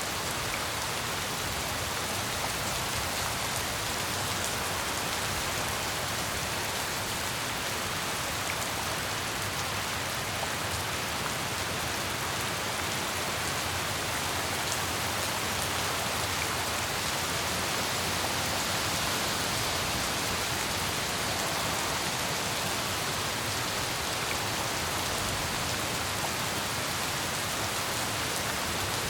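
Steady heavy rain falling, an even hiss of countless drops with no thunder or distinct events.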